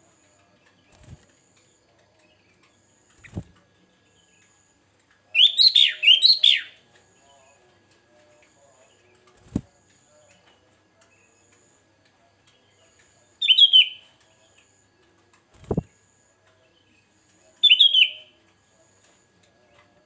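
Sooty-headed bulbul giving short, bright chirping calls: a run of several notes about five seconds in, then two shorter calls a few seconds apart near the end. Between the calls come a few brief dull knocks, the loudest two in the second half.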